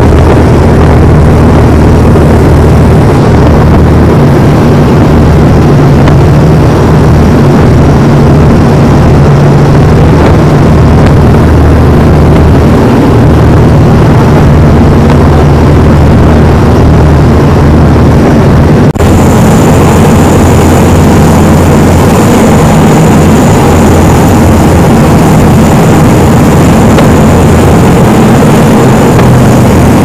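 Boat engine running steadily at speed, loud and close. About nineteen seconds in, the sound changes abruptly and turns brighter, with a thin high whine added.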